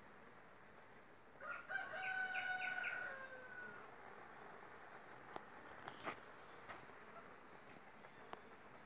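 A rooster crows once, starting about a second and a half in and lasting about two seconds. Later comes a single sharp click.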